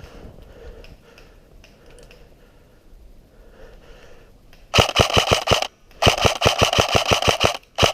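Faint rustling and scraping of movement, then, almost five seconds in, an airsoft electric gun (AEG) firing on full auto in two close bursts of about ten shots a second, the second burst longer.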